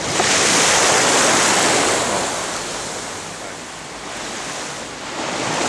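Sea surf breaking and washing up a stony beach, loud at first, easing off in the middle and swelling again near the end.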